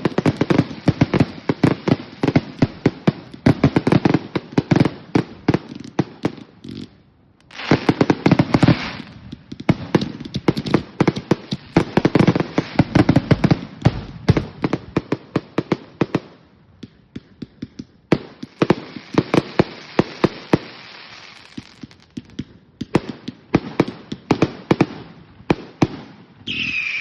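Fireworks going off in rapid barrages of sharp bangs, many a second, mixed with stretches of crackling, with short lulls between barrages.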